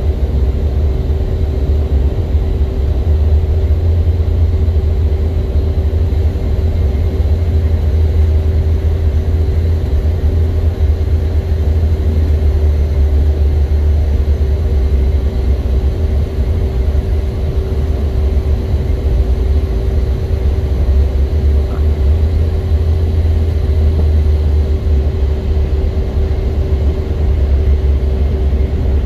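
Jet airliner cabin noise on final approach to landing: a steady low rumble of engines and airflow, with a steady hum over it.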